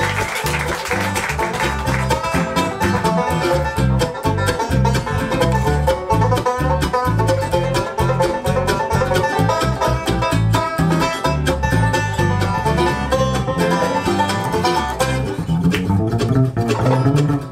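Bluegrass string band playing an instrumental passage: rapid banjo and mandolin picking over acoustic guitar and a steady bass-guitar beat. About fifteen seconds in, the high picking thins out and the lower guitar and bass come forward.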